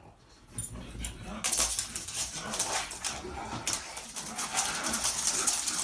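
Pugs rummaging through a blanket on a wooden floor: loud rustling and scrabbling that starts about a second and a half in, with the dogs whining and vocalising.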